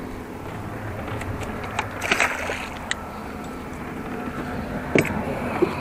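Steady wind and water noise around a small fishing boat, with scattered handling knocks and clicks: a short cluster of them about two seconds in and a sharp knock about five seconds in.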